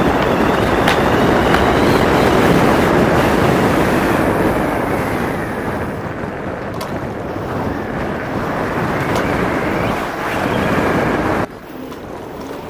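Wind buffeting the microphone and tyre noise from a moving E-Mobo DuoTork dual-motor electric kick scooter. It is loudest at first and eases after a few seconds. Near the end it drops abruptly to a much quieter road noise.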